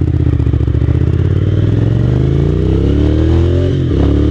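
Motorcycle engine pulling away from a junction: the revs climb steadily, drop sharply at an upshift near the end, then climb again.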